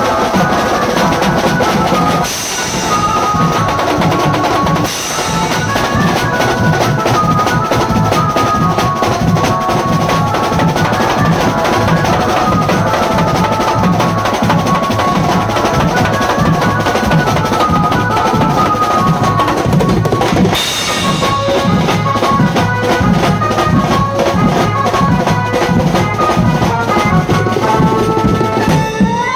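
Drum-led band music: fast, loud drumming with bass drum and snare under a repeating high melody, with a few bright crashes along the way.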